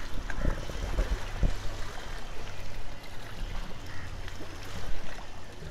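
Open shoreline ambience: wind buffeting the microphone and small waves lapping, under the low, steady drone of a passing longboat's engine.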